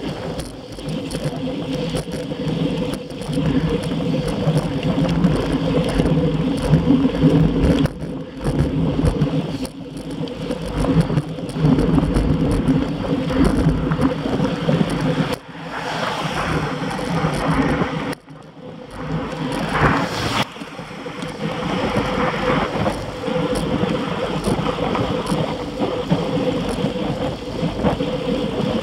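Wind rush and tyre noise on rough asphalt from a bicycle moving at speed, with a steady low hum under it. The rush drops out sharply for a moment about two-thirds of the way through.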